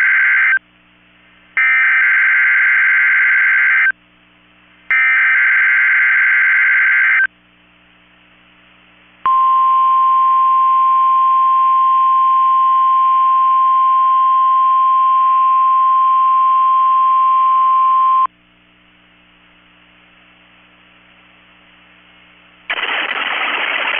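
Emergency Alert System signal on NOAA Weather Radio for a Required Weekly Test. The tail of one burst and then two more of the harsh, buzzy SAME digital header, each about two seconds long, are followed after a short gap by the steady 1050 Hz warning alarm tone, held for about nine seconds and cut off abruptly.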